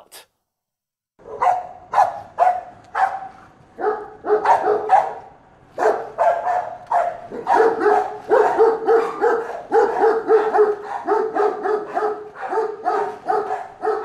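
A dog barking over and over, starting about a second in, at first about two barks a second and then faster and almost without a break from about halfway through.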